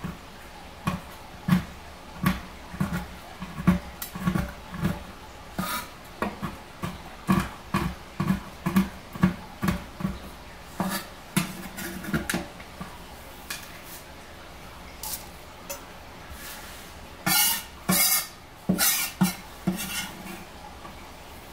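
A kitchen knife knocks against a cutting board about twice a second, chopping dark chocolate discs. Near the end come a few sharper clacks as the chopped chocolate goes into a ceramic mixing bowl.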